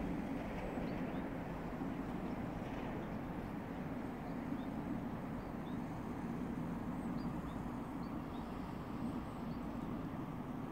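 GE C36-7i diesel locomotive running at a distance, a steady low drone, with small birds giving short high chirps now and then.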